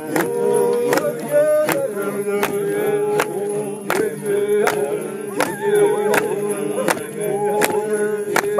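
A group of men chanting a traditional Maasai song, with a long droning held note under higher voices and sharp knocks about once a second.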